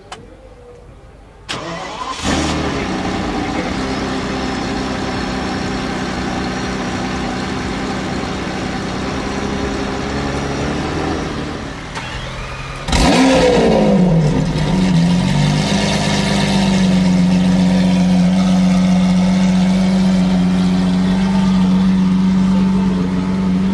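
Two V12 supercar engines start up one after the other. About two seconds in, a Ferrari F50 is cranked, fires and settles into an idle. About thirteen seconds in, a louder Lamborghini Aventador cranks, catches with a brief rev flare that falls away, and settles into a steady idle.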